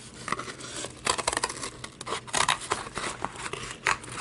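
Small detail scissors cutting through medium-weight cardboard packaging: a run of short, irregular snips, louder in the second half.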